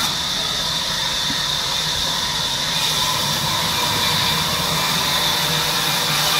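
Sawmill machinery running steadily: a low hum with a high whine and hiss over it.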